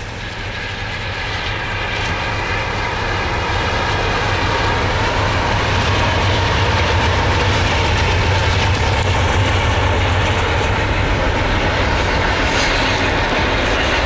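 Norfolk Southern diesel locomotives passing close by: a steady engine rumble that builds over the first few seconds and then holds, with a steady whine over it.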